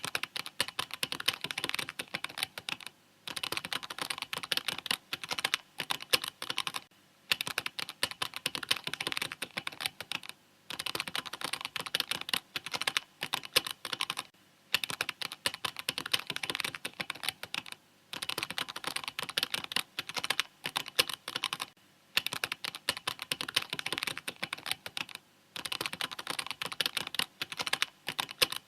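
Mechanical keyboard being typed on fast and steadily, in runs of rapid key clicks about three to four seconds long, each broken by a brief pause.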